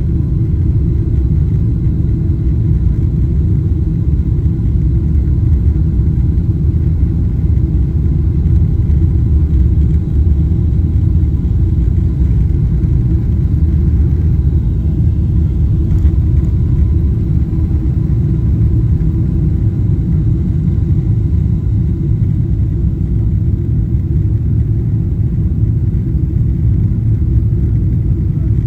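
Boeing 777-300ER's GE90 turbofans at takeoff thrust, heard from inside the cabin as a loud, steady, deep rumble through the takeoff roll and liftoff.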